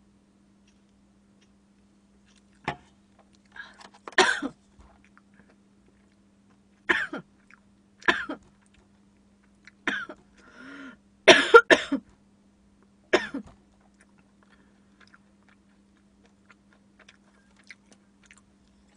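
A woman coughing: a string of about eight short coughs and throat-clearings over some ten seconds, stopping about thirteen seconds in. They follow a gulp of fizzy cola.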